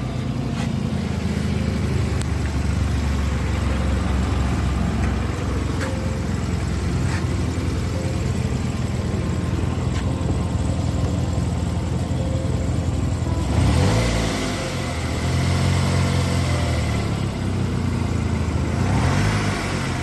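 Tata Nano's two-cylinder petrol engine idling just after start-up, revved up twice, about two-thirds of the way through and again near the end. The exhaust note carries the abnormal noise that the owner takes for a blown gasket between the silencer pipe and the engine.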